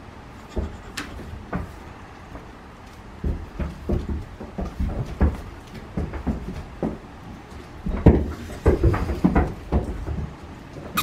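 Irregular soft thumps and knocks, a few each second, bunched most closely about eight to ten seconds in.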